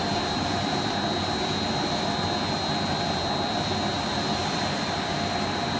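Automatic bucket-washing machine of a textile colour kitchen running: a steady mechanical hum and rush with a constant high-pitched whine.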